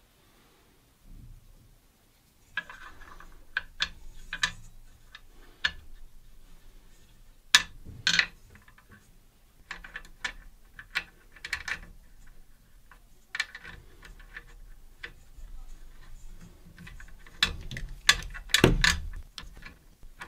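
Small metal hardware clicking and tapping as bolts, spacers and shims are fitted by hand to a CNC gantry's carriage plate. Irregular clicks begin a couple of seconds in, with a few louder knocks among them.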